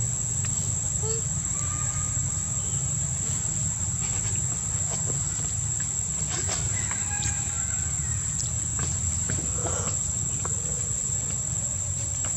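Insects droning in one steady high-pitched tone over a steady low rumble, with a few faint short chirps here and there.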